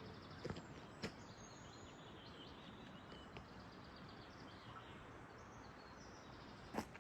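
Quiet lakeside ambience: a steady faint hiss with small birds chirping in the distance, and two soft clicks about half a second and a second in.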